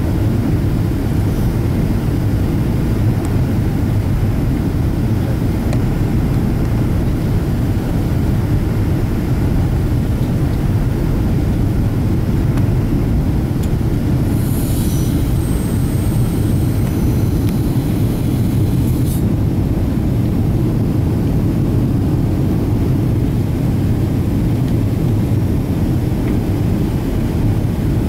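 Steady cabin noise inside a Boeing 777-200ER in flight: a deep, even rumble of engines and rushing air. About halfway through, a high hiss with a thin whistle comes in for about five seconds, then stops suddenly.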